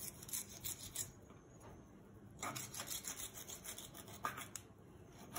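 Chef's knife slicing and scraping through a raw duck breast against a wooden cutting board as the fat and sinews are trimmed off. Faint short scraping strokes come in two runs, one in the first second or so and another from about two and a half seconds in.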